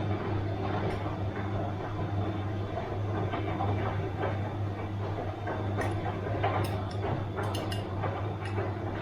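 Bosch washing machine running: a steady motor hum with irregular light clicks and clinks from the tumbling drum, most of them in the second half.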